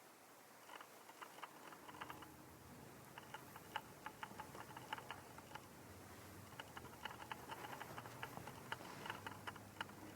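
Faint, irregular light clicks and taps, several a second in uneven clusters, over a soft low hum.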